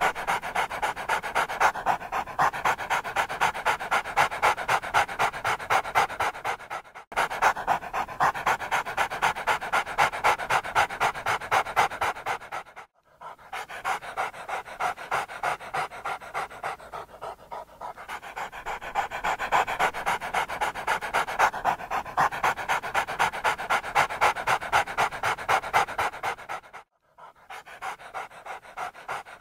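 Dog panting hard and fast, in a steady rhythm of quick breaths, broken by three short gaps.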